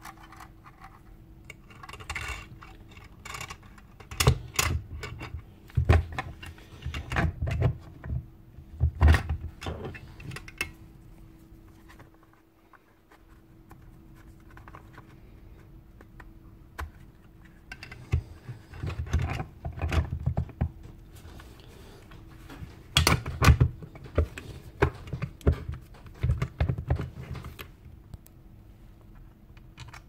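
Knocks, clunks and scrapes of a Ryobi ERT-1150V router's motor housing and metal base being handled and fitted back together over its armature on a workbench. They come in two busy spells with a quieter stretch around the middle, over a faint steady hum.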